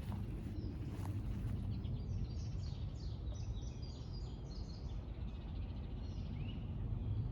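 A songbird singing a quick run of short, high chirps for about three seconds, then one rising note, over a steady low rumble.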